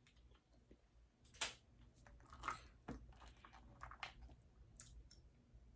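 Faint close-miked eating of boiled seafood: chewing with scattered sharp, wet clicks and smacks.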